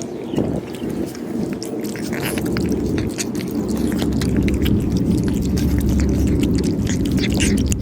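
Cats eating, with the quick irregular crunching and clicking of chewing, over a steady low rumble that grows stronger after a few seconds.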